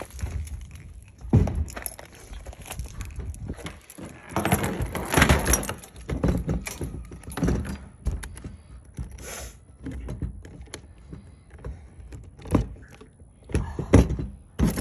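Irregular knocks, clunks and rattles of hands handling tools and plastic fittings, with rustling in between and a few sharper knocks near the end.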